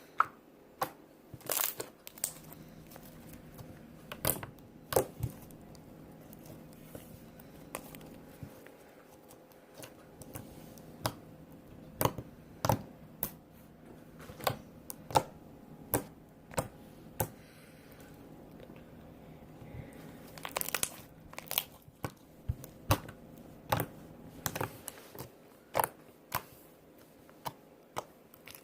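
Slime being worked by hand, giving short sharp pops and clicks at irregular intervals, roughly one or two a second, with a few quick clusters.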